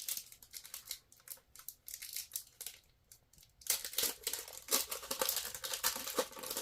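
Trading card pack wrapper crinkling and tearing as it is pulled open: scattered crackles at first, then dense crinkling for the last few seconds.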